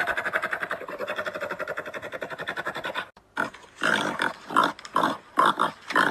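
Calls of an extinct animal: a rapid rattling, pulsing call lasting about three seconds, then a short pause and a string of short separate calls.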